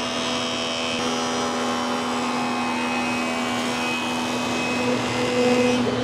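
Wood-surfacing machine (a facer) running with its cutter head spinning, a steady mechanical hum and hiss that swells briefly near the end.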